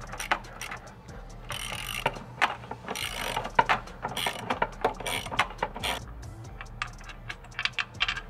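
Hand ratchet on a long extension clicking in several quick bursts as a 17 mm bell-housing bolt is backed out of a Nissan 350Z's transmission. Scattered single clicks follow near the end.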